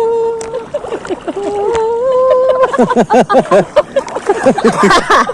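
A voice humming or singing: a few held notes that step in pitch, then from about halfway a quick run of rising-and-falling pitched sounds.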